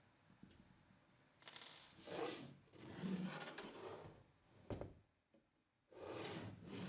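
Metal hardware scraping and clicking as bolts and T-nuts are fastened to hold 3D-printer rod holders on aluminium extrusion profiles: three scraping stretches with one sharp click between the second and third.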